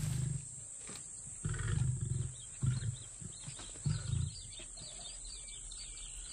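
Lions giving low, deep grunts, about four short calls in the first four seconds, with faint high chirping behind them.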